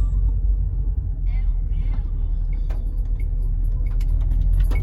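Steady low rumble with no music playing, with faint voices in the background.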